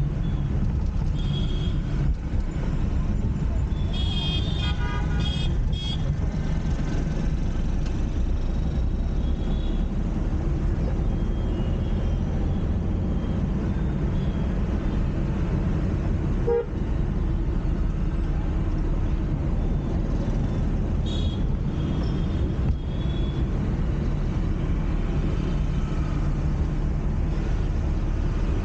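Steady rumble of a car driving on a city road, heard from inside the cabin, with other vehicles' horns honking several times, most clearly about four to six seconds in and again past the twenty-second mark.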